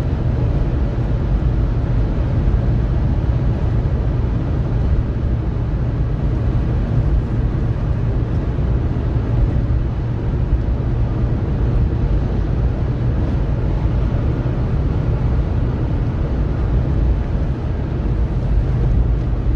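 Steady road noise inside a car cruising on a highway: a constant low rumble of tyres and engine, with no change in pitch or level.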